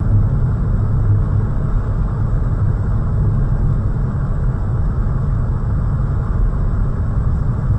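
Steady low rumble of a car driving, road and engine noise heard from inside the car.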